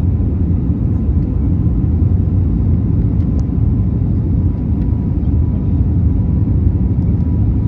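Airliner on take-off or climb: a steady, loud, low rumble of engines and airflow, with a faint steady whine above it.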